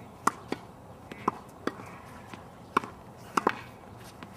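Tennis ball being struck with a racket and bouncing on a hard court: a string of sharp pops, about seven, some in quick pairs.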